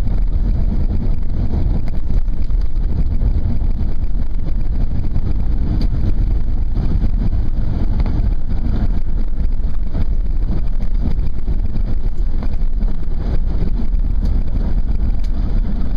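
Truck driving along: steady engine and road rumble, heard from inside the cab.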